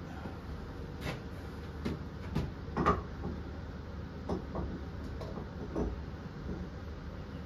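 Scattered knocks and clinks of metal parts and tools being handled at a mini metal lathe, the loudest about three seconds in, over a steady low hum.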